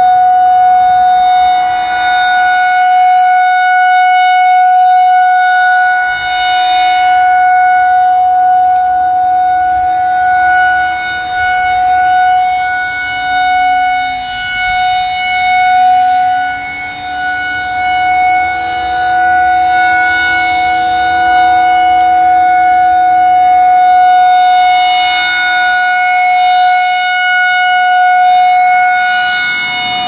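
Federal Signal 2001-SRNB rotating electromechanical siren sounding a steady alert tone at one pitch. Its level swells and fades as the rotating horn turns toward and away, dipping most around the middle.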